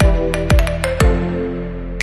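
Electronic background music: sustained chords over a kick drum, with three hits about half a second apart.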